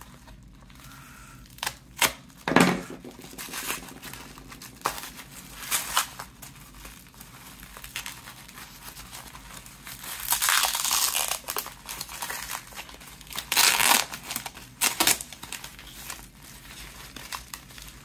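Plastic mailer wrapping and packing tape being slit with a utility knife, then torn and crumpled open by hand. Irregular bursts of crinkling and ripping, with sharp rips about two seconds in, a longer tear about ten seconds in, and more loud rips around fourteen seconds.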